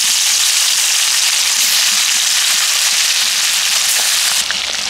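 Bata fish frying in hot mustard oil in a kadai: a loud, steady sizzle with a few scattered pops, easing slightly near the end.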